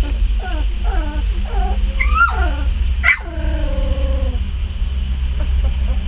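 20-day-old Border Collie puppies whimpering and yipping: a string of short falling whines, a higher squeal about two seconds in, then a sharp cry about three seconds in that trails off into a long falling whine. A steady low hum runs underneath.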